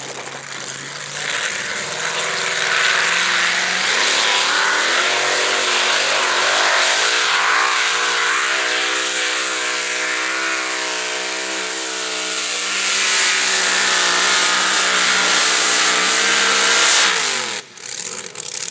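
Tractor-pulling vehicle's engine running hard at high revs under load during a test pull, its pitch rising and wavering, then dropping away suddenly near the end.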